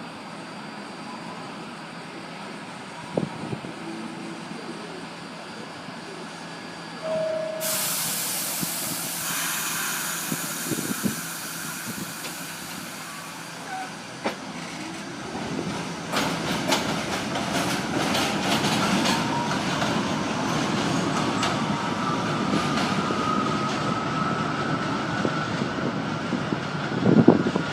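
New York City subway train: a sudden loud air hiss about a quarter of the way in, then the train gets moving, its motor whine rising steadily in pitch while the wheels click over the rail joints.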